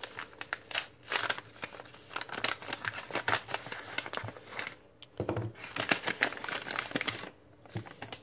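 Thin paper packet crinkling and rustling in the hands as it is unsealed and unfolded, a run of quick, irregular crackles with brief pauses.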